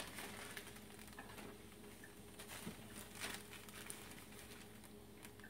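A few faint rustles and light taps from a plastic zip bag being handled, over a low steady room hum.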